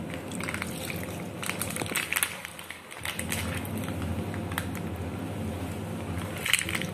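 Milk trickling from a plastic packet into a steel mixer-grinder jar of jackfruit pieces, with scattered light clicks.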